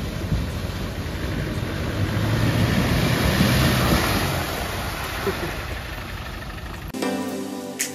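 Land Rover engine running under a steady rush of noise, which swells and eases off in the middle; it cuts off abruptly near the end and music starts.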